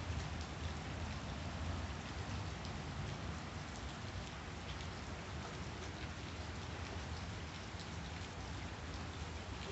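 Steady rainfall, with the patter of many individual drops over an even hiss and a low rumble underneath.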